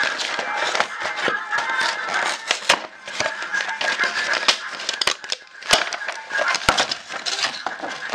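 Cardboard box and the paper and plastic packaging of an instant-noodle meal being opened and handled: rustling and crinkling with many sharp crackles. Music plays in the background.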